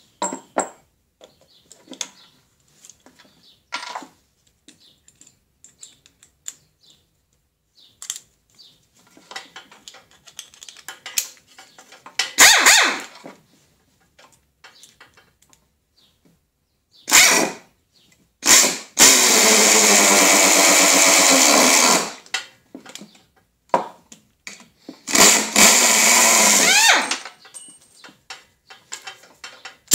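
Pneumatic 1/4-inch hex impact screwdriver running in trigger bursts as it drives screws into a wooden board, the longest burst lasting about three seconds, with handling clicks and knocks between.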